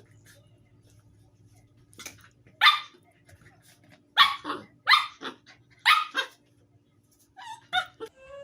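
A dog barking: one bark, then three quick pairs of barks, followed by a few softer sounds near the end.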